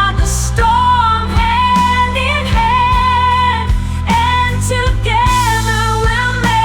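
Blues-rock song playing: a lead melody of long, bending held notes over bass and a steady drum beat.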